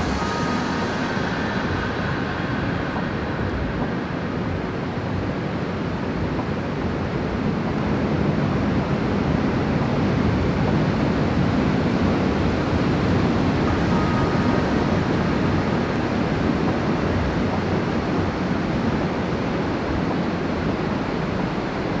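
Steady rushing of river water flowing through the old mill, a constant wash of water noise that grows a little louder about eight seconds in.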